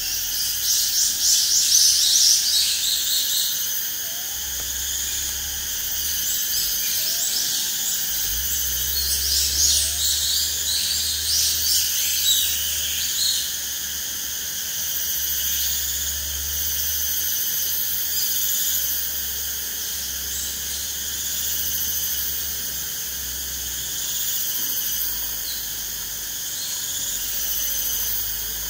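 Steady, high-pitched insect chorus of forest ambience, with bursts of quick high chirping at the start and again from about eight to thirteen seconds in; no owl calls stand out.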